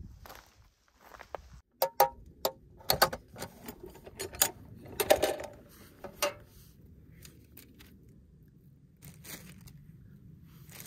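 Metal ammo can being handled and opened: a run of sharp metallic clanks and clicks from its lid and latch, the loudest about five seconds in, then a plastic bag rustling near the end.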